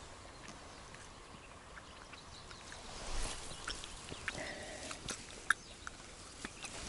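Faint scattered clicks and rustles of hands handling a freshly caught small bream and unhooking it from the line, with a few sharper ticks about five seconds in.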